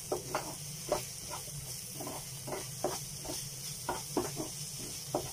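A spatula stirring and scraping chopped onion, tomato and ground spices frying in a pan, in short strokes about twice a second over a steady sizzle. The turmeric, coriander and cumin powders are being fried into the onion-tomato base.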